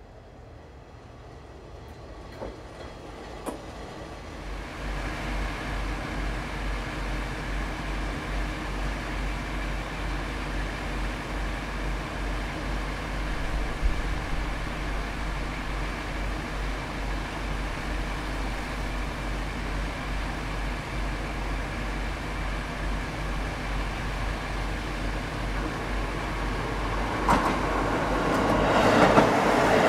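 KiHa 40-series diesel railcar's engine running steadily with a low hum, growing slowly louder. Over the last few seconds a KiHa 85 'Hida' diesel limited express approaches, and the rush of its engines and wheels builds up into the loudest part.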